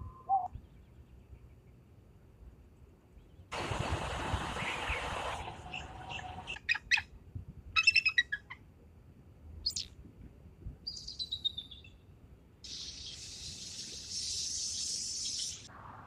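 Hawk calling: several short, sharp chirping notes and a brief falling scream, with stretches of hissing background noise before and after.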